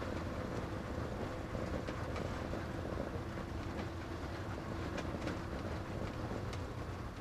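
Motorhome's engine running at low speed as it drives off, heard from inside the cab as a steady low rumble with a faint steady hum. Rain and the windscreen wipers make scattered light ticks on the wet glass.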